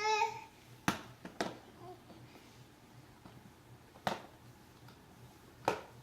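A toy car knocked against a hard surface while a baby plays with it: four sharp clacks, two close together about a second in, one at about four seconds and one near the end. A baby's babbling vocal trails off right at the start.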